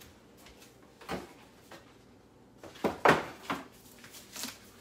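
Handling a cardboard box and printed catalogs: a few short knocks and rustles, the loudest cluster about three seconds in.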